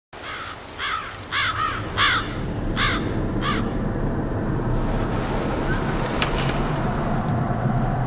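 Crows cawing, about seven harsh caws in the first three and a half seconds, over steady rushing wind that carries on after the calls stop.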